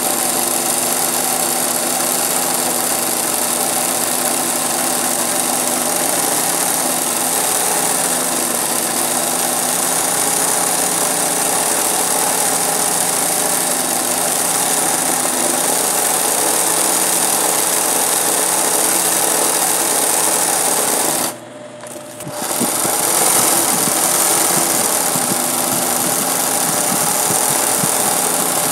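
Singer 20U industrial zig-zag sewing machine running steadily as it stitches freehand embroidery through hooped fabric. About three-quarters of the way through it stops for about a second, then runs again.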